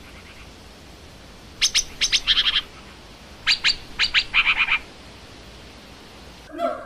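Long-tailed shrike calling in two harsh bursts, about a second and a half apart. Each burst is a few sharp notes followed by a quick run of repeated notes.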